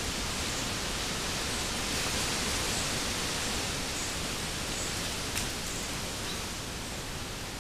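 Steady hiss from a trail camera's microphone, with a few faint high chirps and a single click about five seconds in; no grunting from the boar.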